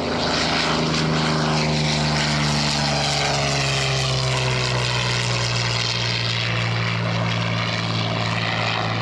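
Curtiss P-40 fighter's piston engine and propeller making a low flypast, a steady engine drone that drops in pitch about three to four seconds in as the aircraft passes.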